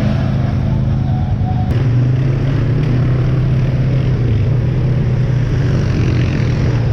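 ATV engine running steadily at low, even revs.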